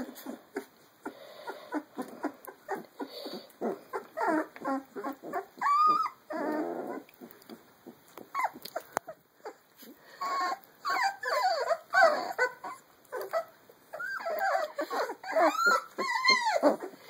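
A litter of very young puppies whimpering and squealing as they play, with high whines that rise and fall, one about six seconds in and many in quick succession through the last third. A short rough growl comes just after the first whine.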